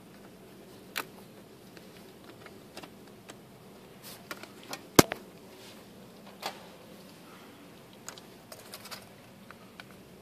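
Scattered light clicks and taps of small tools and parts being handled on a MacBook under disassembly, with one sharper click about five seconds in, over a faint steady hum.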